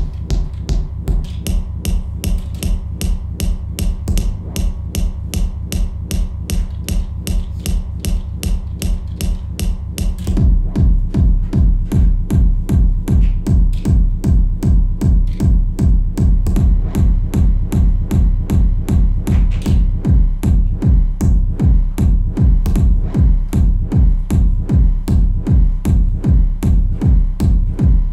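Live electronic techno jam played on hardware drum machines and synthesizers: a fast, steady beat with bright high ticks, then a heavy bass drum comes in about ten seconds in and the groove gets louder.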